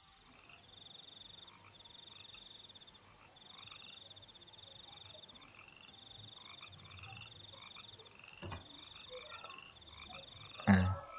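Faint background trilling of calling animals: rapid pulsed trills high in pitch, repeating in trains about a second long, over a steady high chirring. A single sharp click sounds about eight and a half seconds in.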